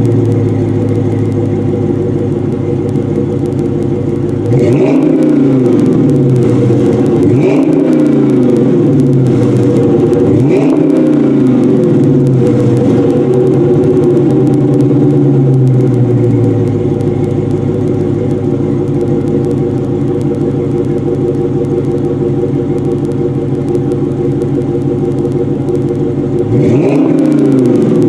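Dodge Challenger SRT8 392's 6.4-litre HEMI V8 through a Flowmaster exhaust, idling with short throttle blips: three in the first eleven seconds and one more near the end. The idle sits high at first and drops about sixteen seconds in, a cold engine's fast idle settling down.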